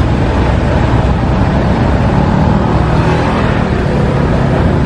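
Steady street traffic noise: a continuous low rumble of passing vehicles with no distinct events.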